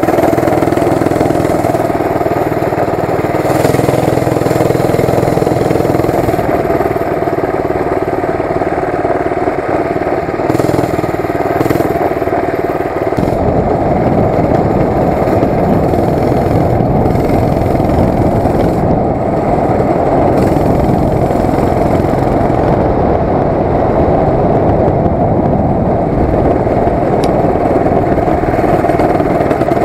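Mini chopper bike's small engine running as it is ridden, a steady drone. From about thirteen seconds in the low end becomes a rougher, noisier rumble.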